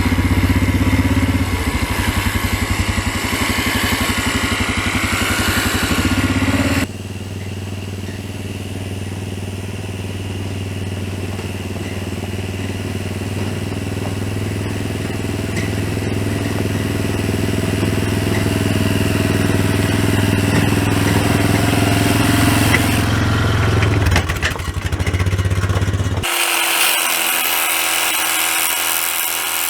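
Four-wheeler engine running, with a change in sound about 7 seconds in. Near the end it gives way to a small electric motor's steady whine with a spray hiss, the cordless pressure washer pumping herbicide mix.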